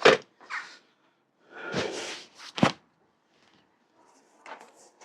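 Handling knocks from a bicycle being worked on: a sharp knock, a short scraping rustle, then a second sharp knock about two and a half seconds in, with faint clicks near the end.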